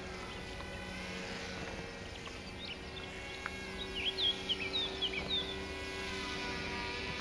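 Twin small electric motors and propellers of a Silverlit X-Twin Turbo-Fury toy RC plane buzzing steadily in flight, the whine's pitch shifting a few times. Several short bird chirps break in around the middle and are the loudest sounds.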